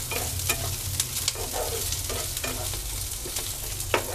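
Sliced onions and garlic cloves sizzling in hot oil in a frying pan, stirred with a wooden spatula that scrapes and taps the pan at irregular moments, most sharply about four seconds in. They are being fried until golden as the base of a gravy.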